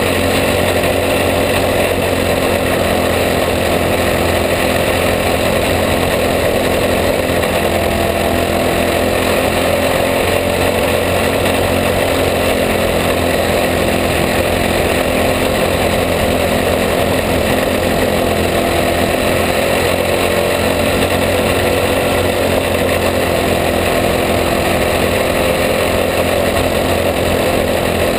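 Racing kart's engine running hard at a steady loud level, recorded on board the kart, its pitch rising and falling slightly as the driver laps the track.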